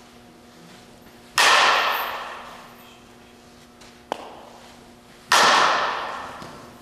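Two sharp pings of a softball bat striking the ball, about four seconds apart, each ringing out and fading over a second or so, with a short click shortly before the second hit.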